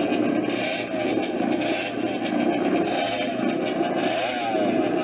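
Sprint motorcycle engine running loud and rough, its pitch rising briefly near the end as it revs.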